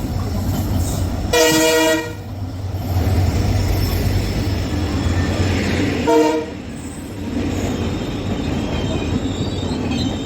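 WDP4B diesel-electric locomotive running with a steady low engine rumble, sounding its horn twice: a blast of just under a second near the start and a shorter one about six seconds in.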